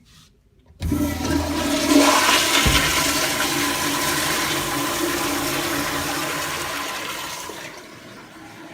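Toilet flushing: a sudden rush of water starts about a second in, is loudest around two seconds, and dies down to a quieter flow near the end.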